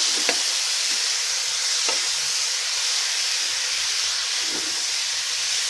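Chopped vegetables (beans, carrot) frying with onion and tomato in ghee and oil in a pan, a steady sizzle while they are stirred, with a couple of faint taps of the spoon against the pan.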